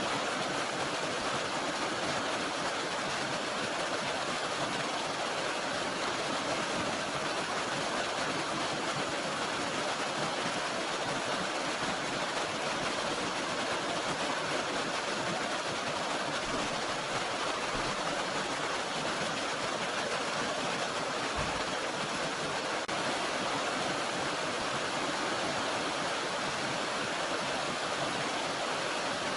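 Steady, even rush of flowing water from a small mountain stream.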